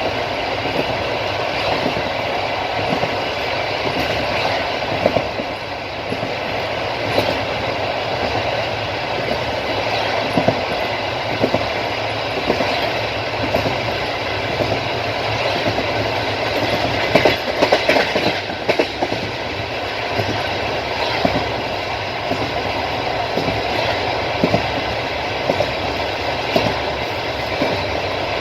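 Passenger train running along the line: the steady rumble of the wagons with the clickety-clack of the wheels over rail joints. A cluster of louder knocks comes about two-thirds of the way through.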